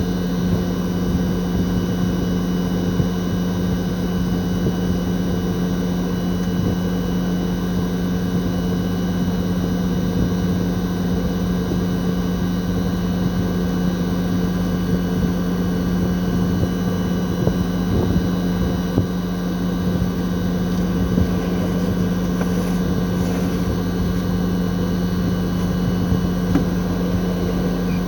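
Toshiba RAS-4069AV outdoor unit's twin-rotary inverter compressor running during a defrost cycle, with the outdoor fan stopped. It makes a steady low hum with fainter, higher whining tones above it.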